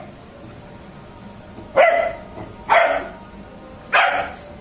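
A dog barking three times, roughly a second apart, beginning a little under two seconds in.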